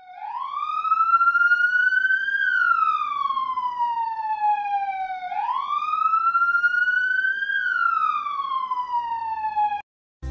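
A siren wailing in two slow rise-and-fall cycles, each climbing for about two and a half seconds and sliding back down, then cutting off suddenly near the end.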